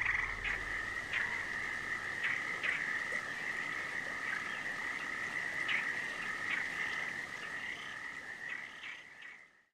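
Chorus of frogs calling, a steady high-pitched trill with scattered sharper calls on top, fading out near the end.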